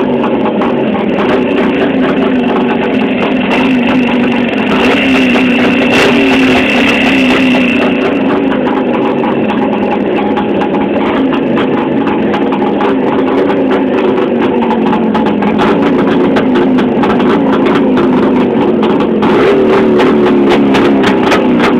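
Multi-cylinder motorcycle engine running steadily close to the microphone, with a fast rustling, ticking mechanical noise. The owner suspects the noise comes from the piston group rather than the central crank bearing.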